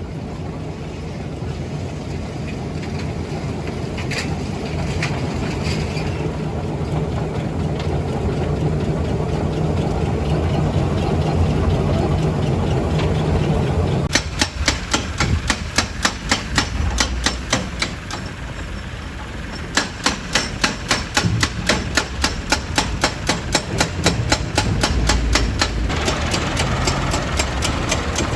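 Heavy diesel machinery running steadily, then a fast, even metallic knocking, about four strikes a second, in two spells from about halfway through, with a short pause between.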